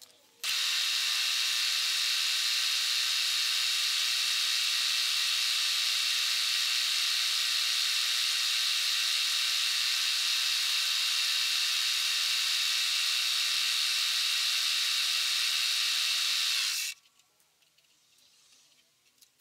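Machine tool spindle running at a steady speed while drilling a through hole in a small metal part, a steady motor whine with hiss. It starts about half a second in and cuts off suddenly near the end.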